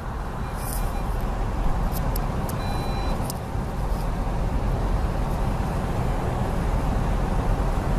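Steady low rumble of a car moving slowly through deep floodwater, heard from inside the cabin, with a few short ticks in the first half and a brief beep about three seconds in.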